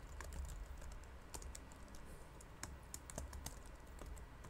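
Computer keyboard typing: faint, irregularly spaced key clicks as a word is typed, over a low steady hum.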